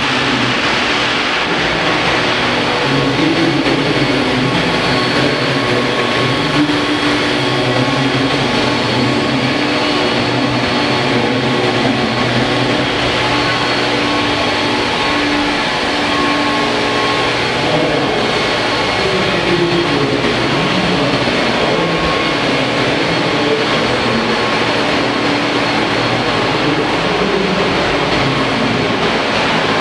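Large 1:5 scale Vario-Helicopter Bell 430 radio-controlled model helicopter in flight: its rotors and drive make a steady whirring whine. The pitch shifts a little as it manoeuvres.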